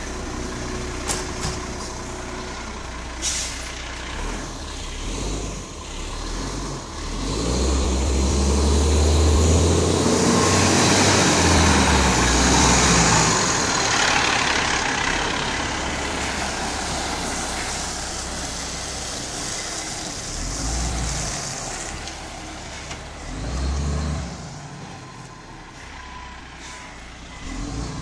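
Iveco Acco garbage truck's diesel engine running, then revving hard as the truck pulls away about a quarter of the way in, with an air-brake hiss; this is the loudest stretch. The engine then fades as the truck drives off down the street, with a few short surges as it changes gear.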